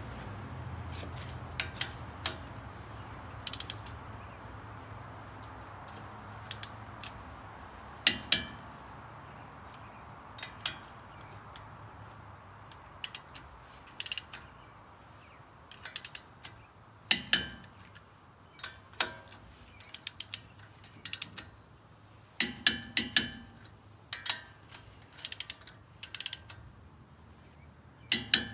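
Hand socket ratchet clicking in short, irregular runs as it turns the lug nuts holding a wheel spacer to a truck's front hub.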